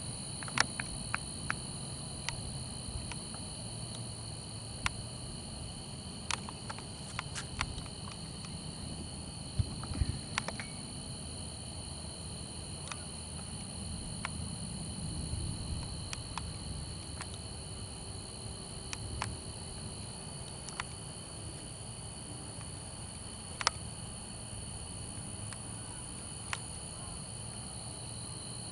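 Crickets and other night insects chirring steadily in several high, unbroken tones, with scattered sharp clicks and a low rumble underneath.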